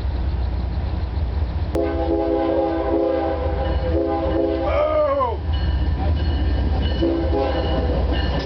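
Diesel freight locomotive's multi-chime air horn sounding one long chord about two seconds in, its pitch sagging as it cuts off, then a brief second note a couple of seconds later, over the low rumble of the passing train.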